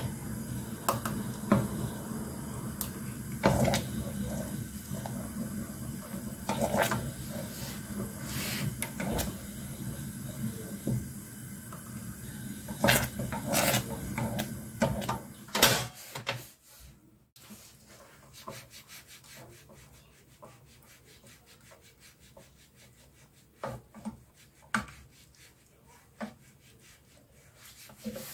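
Wooden spatula stirring sauce in a stainless-steel pot, scraping and knocking against the pot's sides, over a steady low hum. About halfway through the hum drops away and only a few sharp knocks remain.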